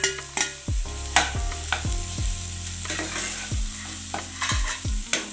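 Metal spatula stirring freshly added chopped carrot and beans through frying onion and tomato in a nonstick kadai, with irregular scrapes and knocks against the pan. The vegetables sizzle in the hot oil as they are sautéed.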